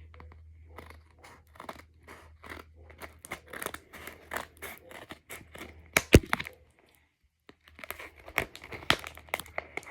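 Handmade paper blind bags being handled: irregular crinkling and small tearing crackles of paper, with one sharp loud crack about six seconds in and the sound cutting out briefly soon after, over a steady low hum.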